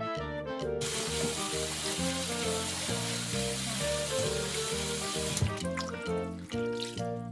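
Water running from a kitchen tap, most likely rinsing the softened kelp noodles in cold water. It starts about a second in and stops about five seconds in, over background music.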